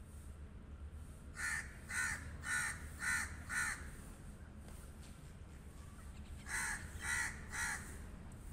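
A crow cawing: five harsh caws in quick succession, a pause of a few seconds, then three more caws.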